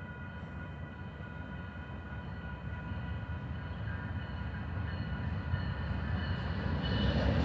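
Approaching GE Dash 8-40BW diesel locomotives rumbling, growing steadily louder as they near, with the grade-crossing signal ringing steady tones.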